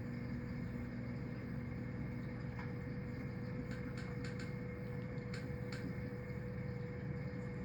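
Steady low hum of a reef aquarium with a thin constant tone above it, and a few faint, scattered clicks.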